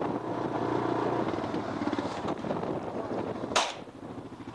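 Vehicle engine running and easing off, then a single loud shotgun shot about three and a half seconds in, fired at flushed Canada geese.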